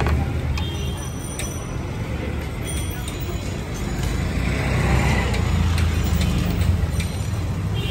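Street traffic: a motor vehicle's engine rumbling steadily close by, with a hiss that swells and fades about four to six seconds in, and a few light clicks.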